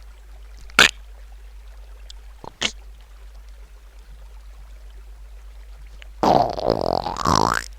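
Two short sharp sounds, then about six seconds in a loud comedic fart sound effect with a wavering pitch, lasting about a second and a half.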